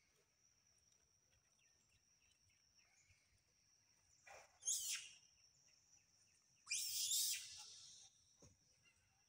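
Steady thin high-pitched insect drone, with two short, loud bursts of noise about four and a half and seven seconds in.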